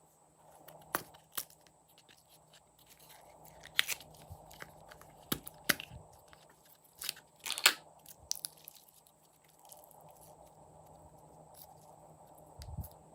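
Hands squeezing and kneading clear slime with mixed-in add-ins, making irregular sticky clicks and pops. The loudest pop comes about seven and a half seconds in.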